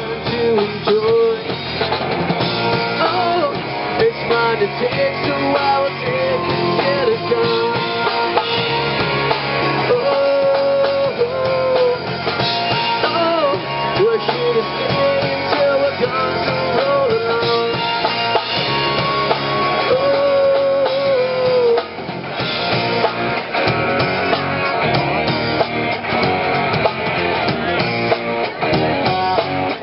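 Four-piece rock band playing live: two electric guitars, electric bass and a drum kit, with a melody line sliding up and down over the band.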